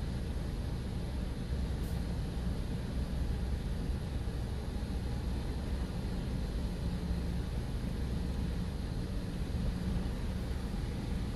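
Automatic car wash machinery running, heard from inside a car's cabin: a steady low rumble with an even hiss over it.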